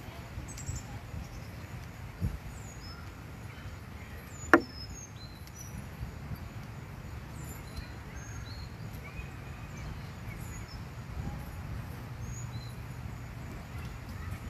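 A chess piece knocked down sharply on the board and table about four and a half seconds in, with a smaller knock a couple of seconds earlier, over outdoor ambience of faint small-bird chirps and a low steady rumble of wind or distant traffic.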